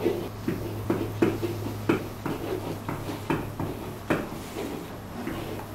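Pen tapping and scraping on an interactive whiteboard surface as words are handwritten: irregular light knocks, about two a second, over a steady low hum.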